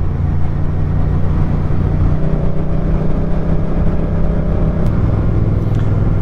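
Motorcycle engine running at road speed, steady and loud; its note drops back about two seconds in and comes up strongly again near five seconds.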